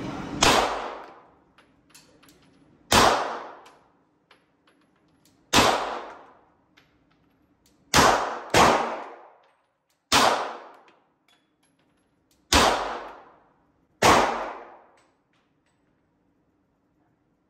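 Glock 19 Gen 3 9mm pistol firing eight slow, aimed shots a couple of seconds apart, with two in quick succession about eight seconds in. Each shot rings out and fades over about a second, echoing in the indoor range.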